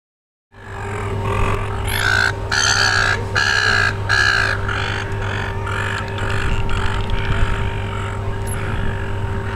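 Bottlenose dolphin making a run of short squeaky calls with its head out of the water, strongest in the first few seconds, over a steady low hum.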